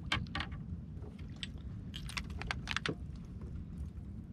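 Light metallic clicks and clinks of a metal fishing jig, its assist hooks and snap being handled: a couple just after the start and a quick cluster about two to three seconds in, over a low steady rumble.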